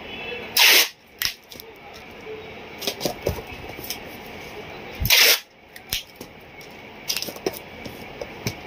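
Brown packing tape pulled off the roll in two short, loud rips, about four seconds apart, while a cardboard parcel is taped up, with light handling clicks and rustles of cardboard and paper between.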